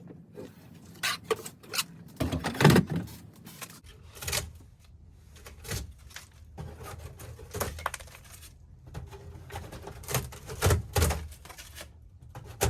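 Irregular knocks, cracks and scrapes of building material being pried and pulled off during demolition work, with a few louder knocks about 2.5 s and 10–11 s in.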